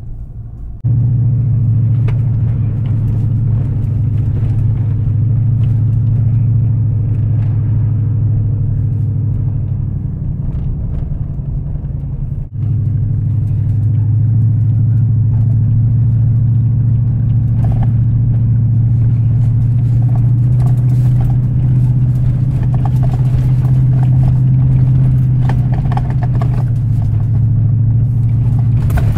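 Truck engine drone and road noise heard inside the cab while driving on a dirt forest road: a steady low hum with scattered light ticks and crackles. It cuts in sharply about a second in and breaks off for an instant near the middle.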